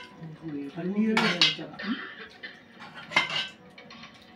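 A metal serving spoon clinking and scraping against a metal cooking pot as chicken is dished out, in short clattering strikes about a second in and again around three seconds.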